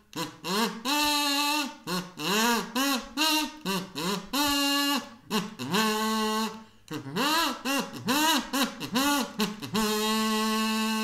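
A single voice singing a wordless tune with no accompaniment, in short syllables that slide up and down in pitch, ending on a long held note.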